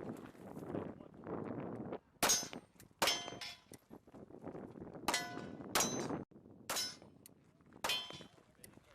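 Beretta M9 9mm pistol shots, about six at an uneven pace, in pairs a little under a second apart. Each is followed by a ringing metallic clang, as of steel targets being hit.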